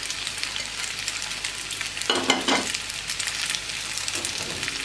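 Macaroni and vegetables sizzling in a hot frying pan while being stirred with a silicone spatula, a steady crackling frying hiss. A louder stretch of stirring noise comes about two seconds in.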